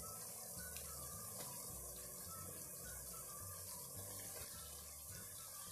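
Chopped radish pods (mongray) and onions frying in oil in a kadhai, a steady sizzle as ginger-garlic paste is stirred in.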